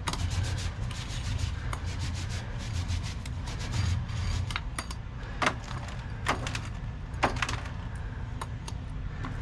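A 9-inch paint roller loaded with gelcoat is rolled back and forth over the boat's fiberglass interior, making a continuous rubbing sound with many small clicks. Sharper clicks stand out about five and a half and about seven seconds in.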